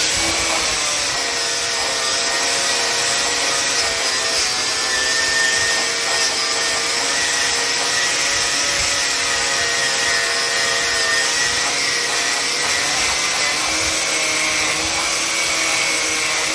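Handheld grinder running steadily with a strip disc pressed against a wheel rim, stripping old clear coat and corrosion off the metal: a continuous motor whine over the scuffing of the disc on the rim.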